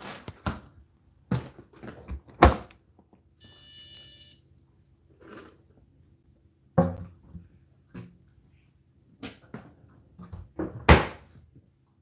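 Whirlpool dishwasher's racks and door being pushed shut, with a series of knocks and thuds. About three and a half seconds in, the control panel gives a single electronic beep lasting about a second.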